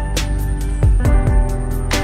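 Background music: held chords over a regular drum beat.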